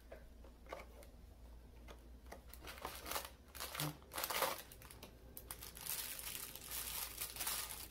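Perforated cardboard door of an advent calendar being pried open, then a small clear plastic bag of LEGO pieces crinkling as it is handled, with the crinkling becoming denser and steadier near the end.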